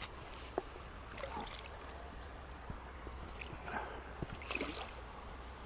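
Faint water sloshing and small splashes at the waterside, with a few soft knocks.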